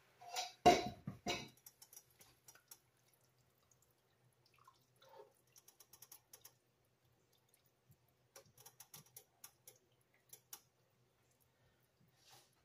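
Spatula stirring Swiss chard in chicken stock in a nonstick pan, making scattered light clicks and taps against the pan with a little sloshing of liquid. A few louder knocks come in the first second and a half.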